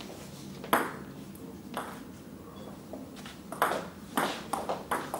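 Table tennis ball clicking as it is struck by bats and bounces on the table. Two single clicks come about a second apart, then a quick run of clicks from about three and a half seconds in, as in a rally.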